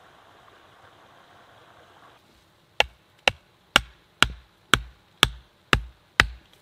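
A hatchet pounding a wooden stake into the ground: eight sharp knocks, about two a second. Before the knocks there is a faint, steady hiss of running stream water.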